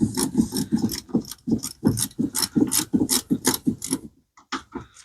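Ratchet wrench clicking rapidly, about six strokes a second, as a side-post battery terminal bolt is worked loose; it stops about four seconds in, followed by a few separate clicks.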